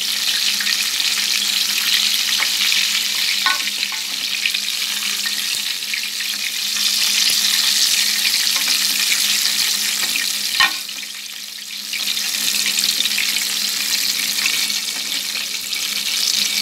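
Breaded chicken pieces frying in hot oil in a pan, a steady sizzle. There are a couple of sharp clicks, the second about two-thirds of the way through, followed by a brief drop in the sizzle for about a second.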